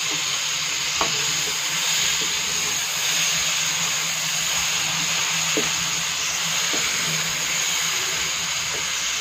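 Meat frying in oil in an aluminium wok, sizzling steadily as it is stirred with a wooden spoon, with a few sharp knocks of the spoon against the pan.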